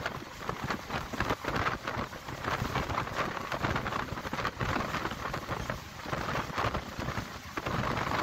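Passenger train running along the track, heard from inside the carriage at an open window: a steady rumble with a continuous clatter of wheels on the rails.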